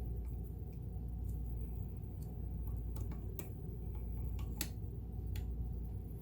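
Scattered light clicks and taps from handling and wiping a sewing machine's metal parts with alcohol, over a low steady hum.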